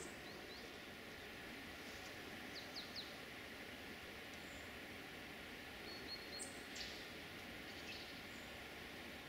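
Quiet woodland ambience: a faint steady hiss with a few short, high bird chirps scattered through it.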